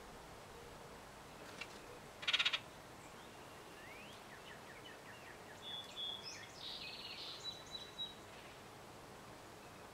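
Birds calling in the background: one short, loud rattle about two seconds in, then a cluster of chirps and whistles from about five to eight seconds, ending in a thin steady whistle.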